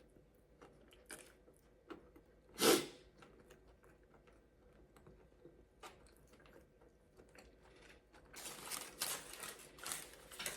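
A person eating tortilla-wrapped food close to the microphone. There is one louder bite or crunch about a third of the way in, faint mouth clicks, then a run of crisp crunching near the end.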